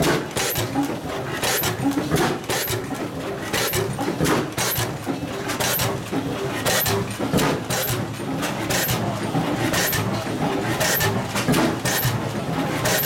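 60 hp Pattin Bros Ekonomy stationary engine running with its compressors, loud, with a sharp regular beat about every two-thirds of a second over a steady mechanical clatter.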